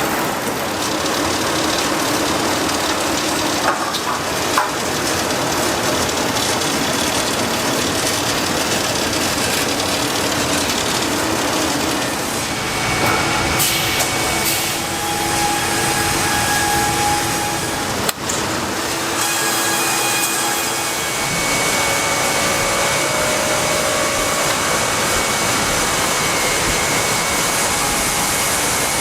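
Steady noise of woodworking machinery running in a sawmill, with faint whining tones that come and go and a brief break about 18 seconds in.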